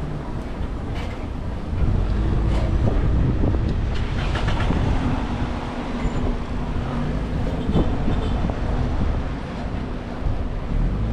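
Heavy vehicle engines running with a steady low rumble, with a few short knocks.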